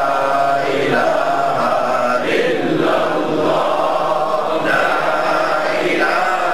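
A group of voices chanting Sufi dhikr together, repeating one short devotional phrase over and over, a new repetition about every two and a half seconds.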